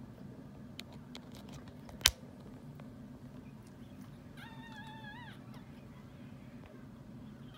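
A newborn Miniature Schnauzer puppy lets out one short, wavering high-pitched squeak about halfway through, over a steady low hum. A single sharp click about two seconds in is the loudest sound.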